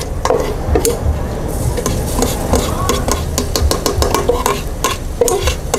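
Metal ladle scraping and tapping repeatedly against a stainless steel bowl as minced garlic is scraped out into a small pot of hot oil, with a sizzle starting about a second and a half in as the garlic hits the oil.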